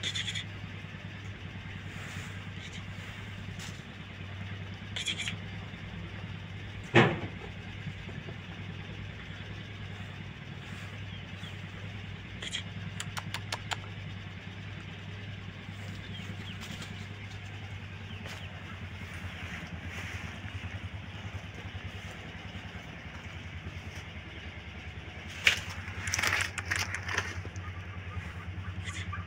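A steady low engine drone, with one sharp click about seven seconds in and a short patch of clicks and rustling near the end.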